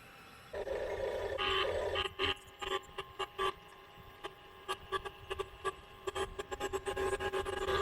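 Small electric motors and plastic gears of a radio-controlled backhoe excavator whining in stop-start bursts, with sharp clicks between them; it starts about half a second in.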